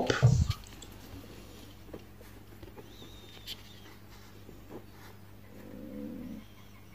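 Quiet room with a few faint, light clicks. About five and a half seconds in, a faint low tone lasts about a second.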